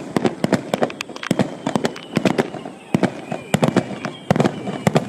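Fireworks display: a rapid, irregular string of sharp bangs and crackles from bursting shells, several a second, with a faint high tone in the second half.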